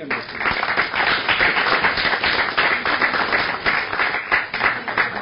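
Audience applauding, breaking out suddenly as dense clapping.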